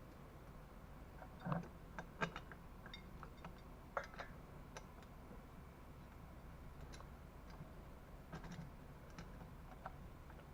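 Faint, scattered clicks and light knocks of hard parts and tools being handled while an engine kit is fitted to a bicycle frame, bunched in the first few seconds with a few more near the end.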